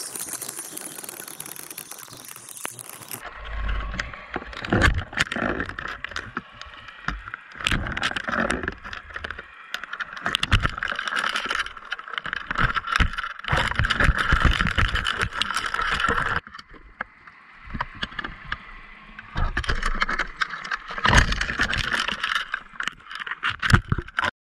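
Underwater audio from a GoPro in a waterproof case on a halibut spreader-bar jig: repeated irregular knocks, clicks and rattles of the rig and weight against the housing over a muffled rushing of water, easing off for a few seconds past the middle.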